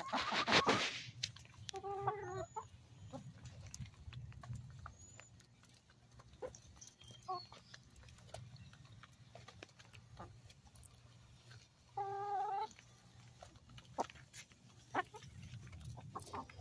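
Backyard hens feeding on scraps: beaks peck and tap the ground in scattered clicks. One hen gives a short call about two seconds in and a longer, drawn-out call about twelve seconds in. There is a brief loud rustle at the very start.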